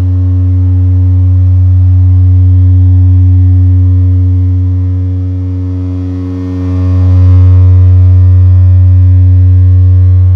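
Loud, steady low hum of a 91.4 Hz test tone, with buzzy overtones, from a loudspeaker exciting a standing-wave eigenmode of a reverberation chamber. Its loudness dips a little past halfway and then swells again as the listening position passes between pressure minima and maxima of the mode.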